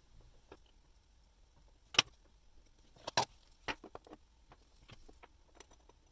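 A few sharp metal clicks and taps from small watchmaker's tools being handled on the bench. There is one loud click about two seconds in, a close pair just after three seconds, and lighter ticks after that.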